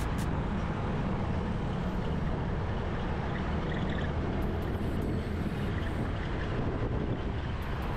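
Steady wind rush and engine and road rumble from a Honda Air Blade motor scooter riding through city traffic, even throughout with no distinct events.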